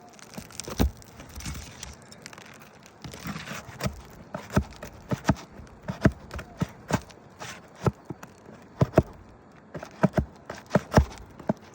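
Roofing nails being worked loose from under old, brittle asphalt shingles: a run of sharp clicks and knocks, coming faster in the second half, over crackling and rustling of the shingle.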